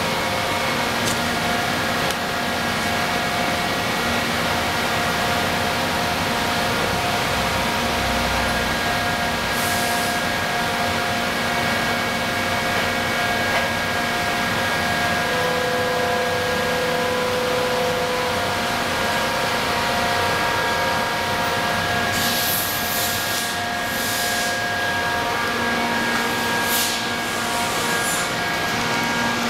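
OKK PCV-50 CNC vertical machining center milling aluminum under flood coolant: a steady whine of several tones over a hiss of coolant spray. A few short, sharper hisses come in the last several seconds.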